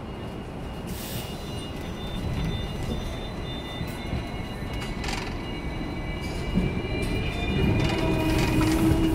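Hong Kong double-decker electric tram running on its rails, heard from inside: a steady rumble of wheels on track with a faint high-pitched wheel squeal that comes and goes, growing louder near the end.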